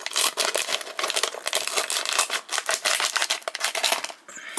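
Plastic wrapping of a pack of baseball cards crinkling and crackling as it is handled and torn open, a dense run of sharp crackles with a brief lull near the end.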